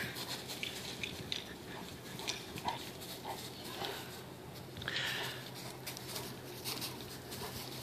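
Faint sounds of an English Mastiff playing fetch with a squeaky tennis ball: a few short, soft squeaks and scattered light clicks and rustles, with a brief louder rustle about five seconds in. A steady low hum runs underneath.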